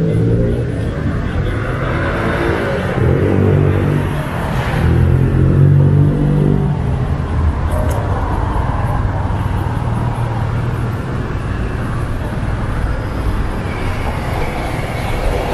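City street traffic: a motor vehicle's engine running close by for the first several seconds, over the steady noise of passing cars.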